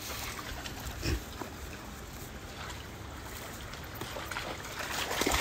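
A shallow stream running over stones, with a dog's paws splashing as it wades through the water; a few louder splashes stand out, one about a second in and another near the end.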